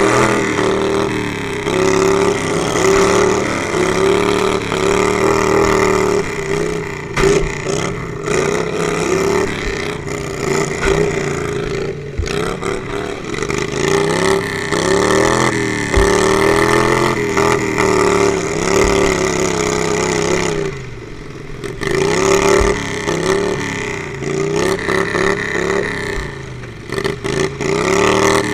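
Riding lawnmower's small engine running close by, its pitch rising and falling again and again as it is revved and let off while driving. A few low thumps come through.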